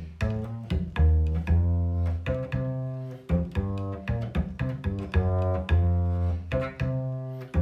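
Acoustic upright double bass played pizzicato, a slow bossa nova bass line with fingers plucking across the strings. Each plucked note starts sharply and rings on, in a repeating pattern of long and short notes.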